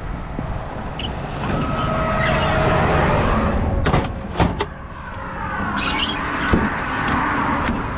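Highway traffic passing close by, two vehicles swelling and fading one after another, with a couple of sharp clicks about four seconds in.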